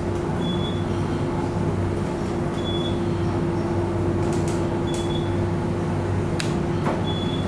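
Elevator car in motion, running up with a steady hum and drone. A short high beep repeats about every two seconds, and a few sharp clicks sound in the second half.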